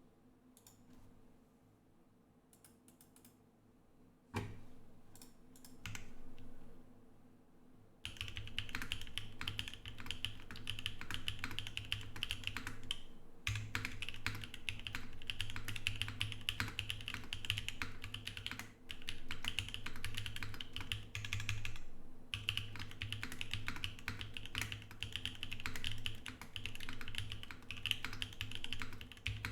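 Typing on an Emery 65 mechanical keyboard with lubed JWK Prevail Nebula switches, GMK Maestro keycaps and an XPC plate. A few scattered key presses come first. Steady fast typing starts about eight seconds in, with two brief pauses.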